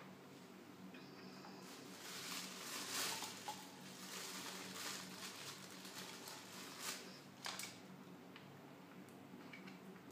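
Rustling and light clicking of hair accessories and a plastic shampoo bottle being handled, loudest in the first half, with a few sharp clicks near the end.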